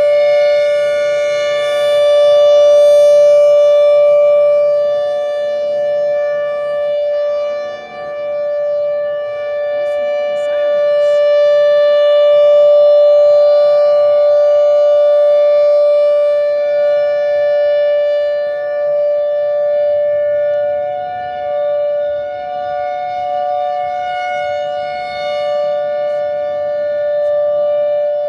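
Federal Signal Thunderbolt 1000A blower-driven outdoor warning siren sounding a steady two-tone signal at full pitch. Its loudness swells and fades about every ten seconds as the rotating head sweeps past.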